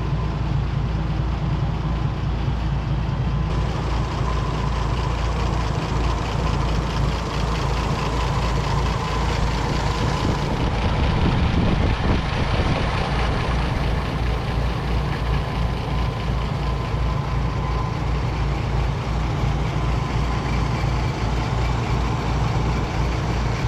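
Gas Oliver 880 tractor engine running steadily.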